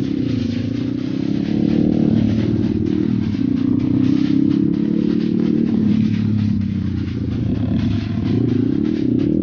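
Dirt bike engine running under throttle, its pitch rising and falling, with a rise and fall in revs near the end, and clattering throughout.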